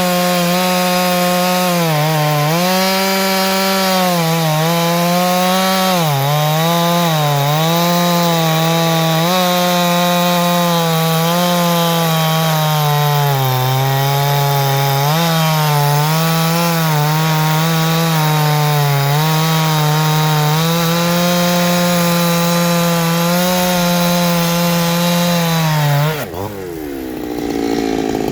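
Farmertec G372XT two-stroke chainsaw (a Husqvarna 372XT clone) running flat out, its pitch dipping again and again as the engine is pulled down under load, as when cutting wood. Near the end the throttle is let off and the engine drops quickly to a low idle.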